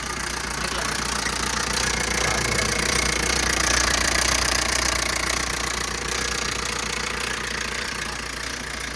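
Maruti Swift 1.3 L diesel engine idling with a harsh, tractor-like knocking clatter. The sound is abnormal for a Swift and marks an internal engine fault.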